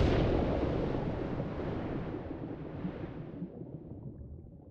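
A deep rumbling whoosh sound effect dying away slowly: its hiss fades first and the low rumble lasts longest.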